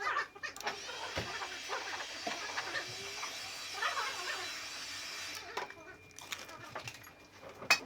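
A small motor whines up, then runs with a steady hiss for about five seconds and cuts off, over scattered light taps and knocks from work on a car door.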